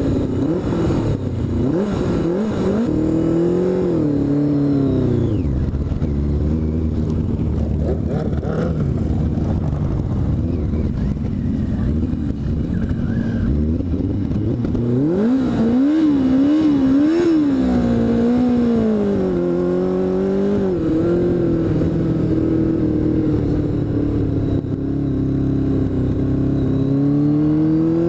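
Motorcycle engine running under throttle, its pitch rising and falling, with a few quick revs about halfway through and a steady climb in pitch near the end.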